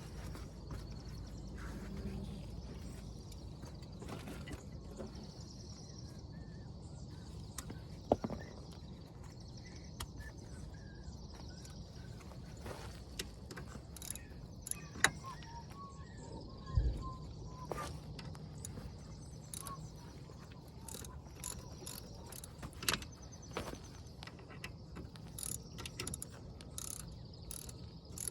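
Socket ratchet clicking as front brake caliper mounting bolts are run in, with a few sharper metal knocks along the way; insects chirp steadily behind.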